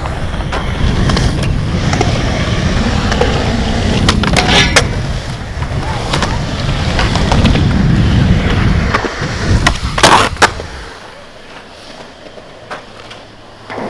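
Skateboard wheels rolling over concrete with a steady low rumble, broken by sharp clacks of the board about four and a half seconds in and again, louder, around ten seconds in. The rolling then stops.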